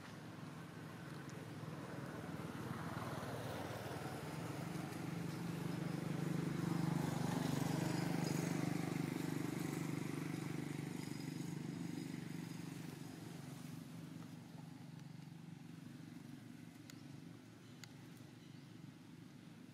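Low engine hum of something passing by, swelling slowly to its loudest about eight seconds in and fading away.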